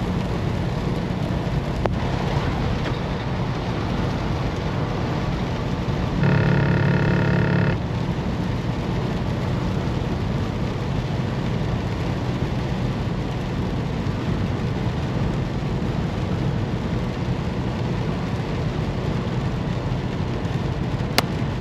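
Semi truck on the road in the rain: a steady drone of engine, tyres and rain. About six seconds in, a held tone with several pitches sounds for about a second and a half.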